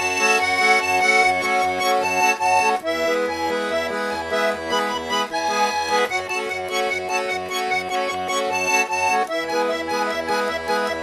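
Instrumental intro of a folk-style song: an accordion plays a melody and chords over a steady pulsing bass beat, with the chord changing about every three seconds.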